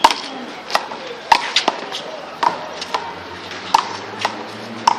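A one-wall handball rally: a small rubber handball is struck by hand and smacks off the wall and the ground, making about ten sharp slaps at an irregular pace.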